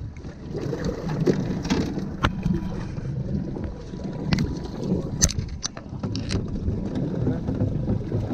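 Offshore fishing boat on the water: a steady low rumble of wind and water noise, with a few short sharp knocks scattered through it.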